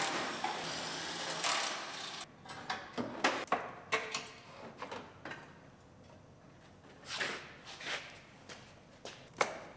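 A cordless driver runs briefly on a truck's front bumper fasteners, then a series of knocks and clunks follow as the bumper is worked loose and pulled off.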